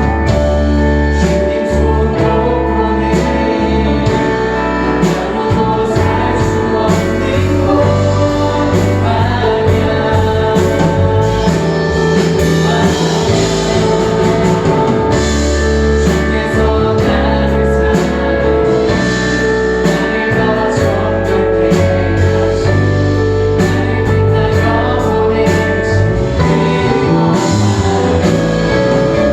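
Church praise team singing a Korean worship song with a live band, a steady drum beat under the voices.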